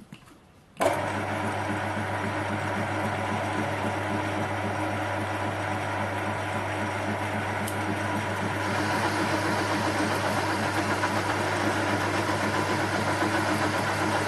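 Metal lathe switched on about a second in and running steadily on coarse feed, its motor and gears humming while it turns down a steel part; the sound grows a little louder and brighter past the halfway point.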